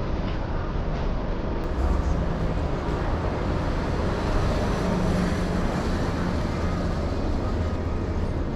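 Steady low rumbling background noise with a faint hiss above it, even throughout.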